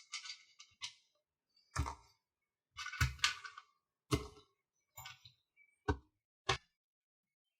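Small hardware and plastic kit parts handled and set down on a work surface: irregular clicks and light knocks, the loudest about two and three seconds in.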